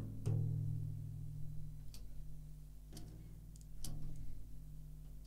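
Snare drum with a freshly fitted 14-inch batter head, hit once and then tapped lightly three more times, giving a low pitched ring of about two seconds after the first hit. The deep pitch shows the head is still tuned well below its target during tensioning.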